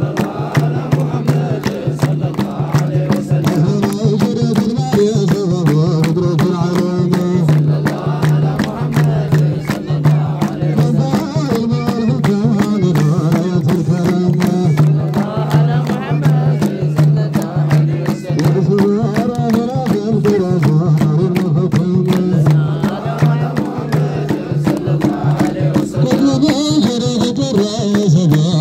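Menzuma chanting: a man sings through a microphone over a steady beat of many hands clapping in time and a large hide drum beaten with a stick.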